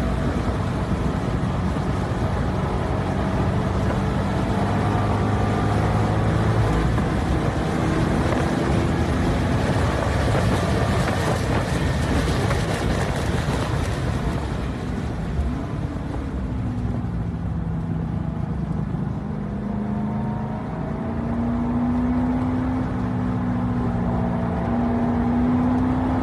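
2012 Corvette Grand Sport's 6.2-litre LS3 V8 running hard on track. It eases off briefly past the middle, then pulls again with the pitch rising near the end.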